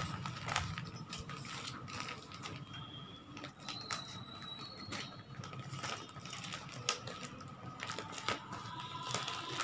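Scissors snipping open a taped plastic courier mailer: irregular clicks of the blades cutting, with the plastic and packing tape rustling as the parcel is handled.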